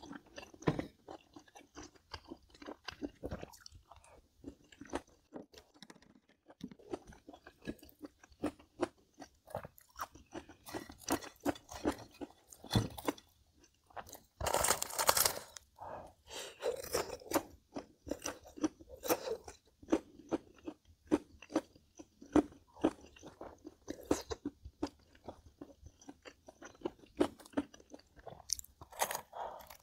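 Close-up chewing and crunching of crisp food, many small crunches in a row, with a louder crunch about halfway through.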